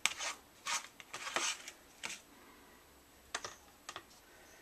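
Plastic spoon scraping peanut-butter paste off a paper plate and tapping into a plastic container: a string of short clicks and scrapes, most in the first second and a half, then a few more spaced out.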